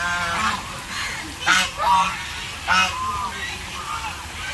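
Ducks calling loudly in a run of harsh, pitched calls, with the loudest coming about a second and a half, two seconds and three seconds in.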